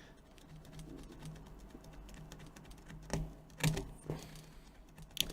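Handling of a tablet and small repair tools: a few light, sharp clicks and taps, several of them about three to four seconds in and one more near the end, over a faint steady hum.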